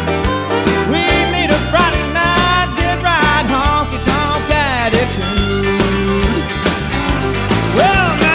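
Background music: a rock song with singing and a steady drum beat.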